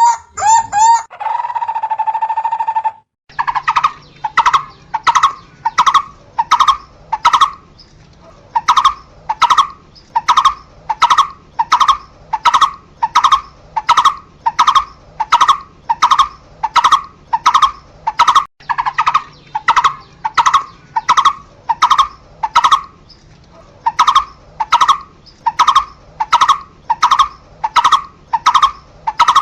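Barbet calling: a long, loud series of short, hollow, evenly repeated notes at about two a second, with a couple of brief pauses, over a faint steady low hum. Before the series, which starts after an abrupt cut about three seconds in, there is a faster run of notes ending in a held whistle.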